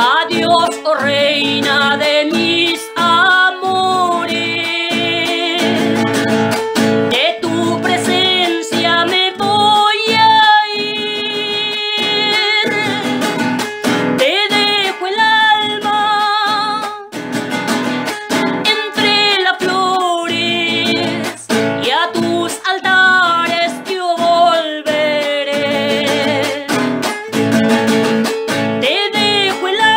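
A woman singing a tonada in phrases with a wide vibrato, accompanied by strummed acoustic guitar.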